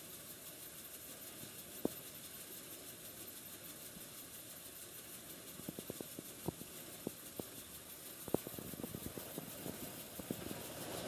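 Tractor-driven threshing machine running steadily, a constant mechanical hum, with scattered sharp knocks and clicks that come thicker in the second half.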